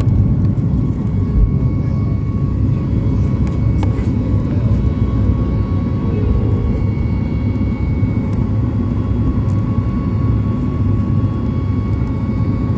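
Airliner taking off, heard from inside the passenger cabin: a loud, steady low rumble of the jet engines at takeoff power with a thin steady whine above it, as the plane leaves the runway and climbs.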